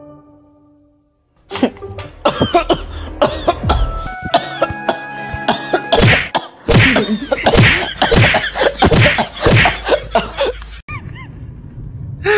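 Music with a rapid string of short, loud noisy bursts over it, about two a second, starting after a near-silent second and stopping about a second before the end.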